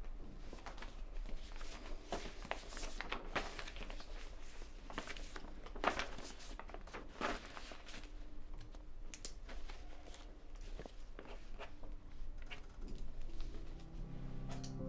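Scattered rustling, crinkling and light knocks of camera gear and papers being handled on a table. Soft music tones come in near the end.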